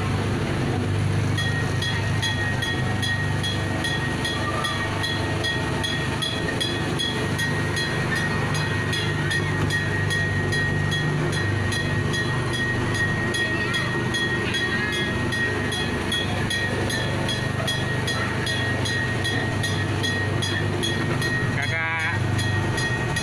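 Small amusement-park tourist train running steadily: a low motor drone under a steady high-pitched whine that starts about a second in, with fast, even ticking.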